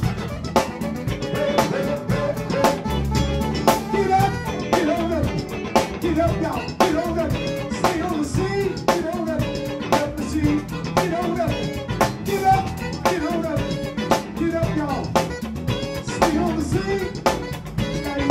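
Live funk band playing a steady groove: Alembic electric bass, electric guitar and drum kit keeping a regular beat, with a melodic line wandering over the top.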